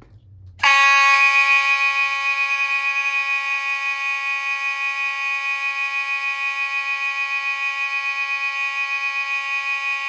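A fire alarm starts suddenly less than a second in and sounds a continuous, steady, loud buzzing tone rich in overtones, with a slight fast flutter.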